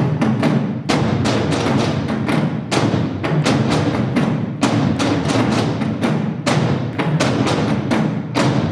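Korean nanta drumming: an ensemble of drums beaten with sticks in a fast, dense, driving rhythm, with no pauses.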